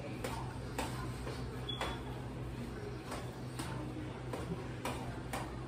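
Metal utensil knocking against a stainless-steel saucepan as food is stirred in it: about seven light, irregular clinks over a steady low hum.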